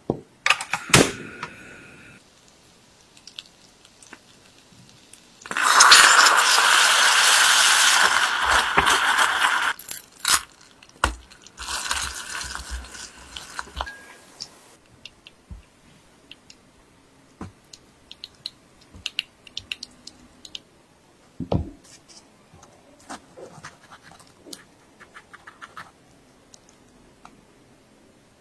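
Caramel-making in a stainless steel saucepan: a few clicks and knocks at the start, then a loud steady hiss for about four seconds, and a second, shorter hiss a little later. After that come scattered light scrapes and taps as the mixture in the pot is worked.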